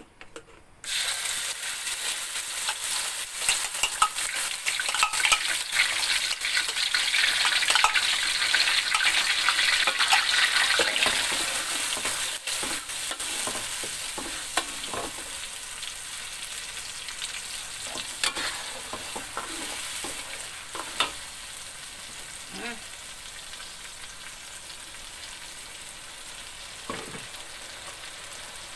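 Ground chili-and-shallot spice paste hitting hot oil in a wok, sizzling loudly all at once about a second in, while a metal spatula stirs and scrapes it around the pan. The sizzle slowly dies down over the second half as the paste fries.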